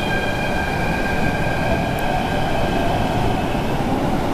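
MTR K-Train subway train pulling out of the station behind platform screen doors: a steady rumble with a high electric whine that fades away about three seconds in.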